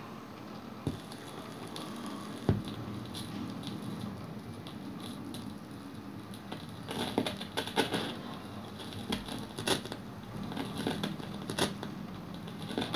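Turntable stylus riding a vinyl record's groove near the label with no music on it: faint surface hiss with scattered crackles and pops.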